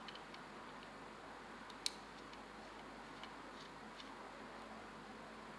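Light, scattered ticks and one sharp click about two seconds in, from a small screwdriver and the opened plastic mouse shell being handled while button screws are undone, over a steady hiss.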